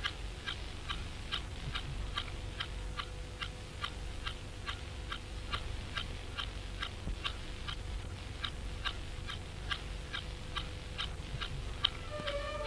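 Clock ticking steadily, about three ticks a second, over a faint steady hum. Piano music comes back in near the end.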